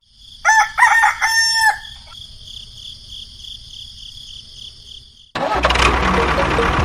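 A rooster crowing once, a call of three notes with the last held, over a steady high-pitched buzz. About five seconds in, loud music starts abruptly.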